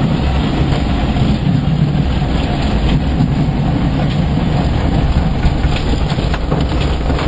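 Steady, loud rumble of airflow and airframe noise inside an ASK21 glider's cockpit, with a few faint rattles.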